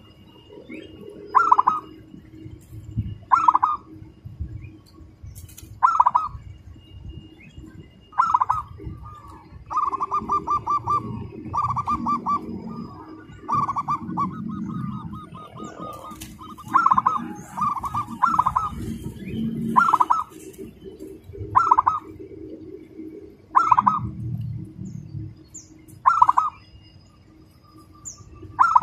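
Zebra dove (perkutut) cooing: short trilled calls repeated every two seconds or so, with a quick run of several back-to-back trills about ten seconds in.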